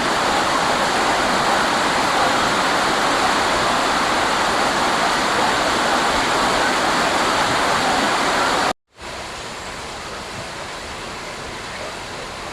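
A steady rush of running water. It cuts off sharply a little before nine seconds in and returns at once, noticeably quieter.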